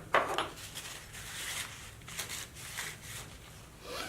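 Tailwell tail-trimmer cutters being handled and wiped clean of oil and grease: a series of short rubbing and scraping strokes on the small metal parts.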